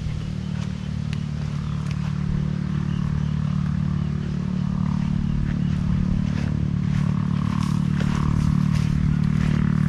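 A steady, low engine drone that grows slightly louder, with scattered light clicks and scuffs.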